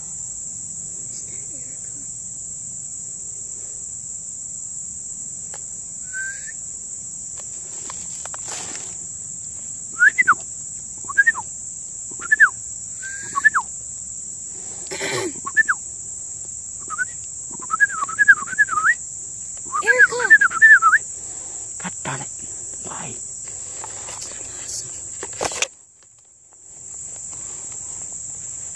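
Steady high-pitched drone of an insect chorus in summer woods, cutting out briefly about 26 seconds in. Footsteps and brush rustle through leaf litter. From about 10 to 21 seconds a series of loud, short chirps rises and falls in quick runs, the loudest sounds here.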